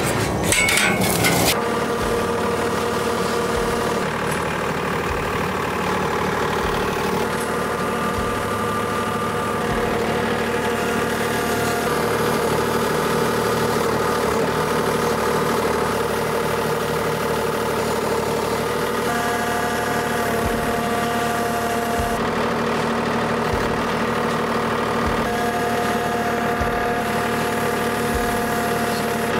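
Kubota L2502 tractor's diesel engine running steadily, with an extra higher tone that comes in twice in the second half. A few sharp knocks in the first second or two.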